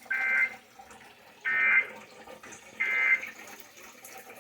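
Emergency Alert System end-of-message data bursts: three short two-tone digital squawks, about 1.3 s apart, over faint receiver hiss. They mark the end of the alert message.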